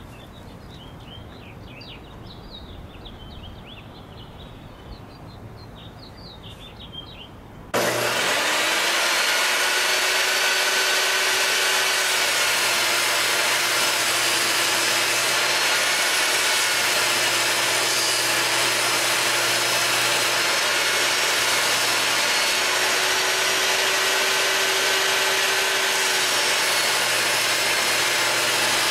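Birds chirping, then about eight seconds in a Skil TS6307-00 10-inch jobsite table saw switches on abruptly and runs steadily. Its 40-tooth blade rips a 3/4-inch MDF sheet, and the motor's pitch dips slightly a few times under load.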